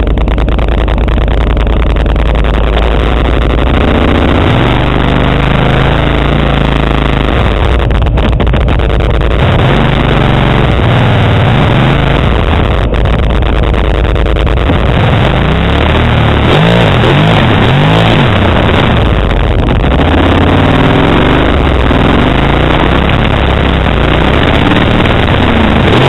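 Kawasaki Brute Force 750 ATV's V-twin engine through a Muzzy aftermarket exhaust, loud and close, revving up and down again and again as the quad works through a muddy water hole. A constant rushing noise runs under the engine.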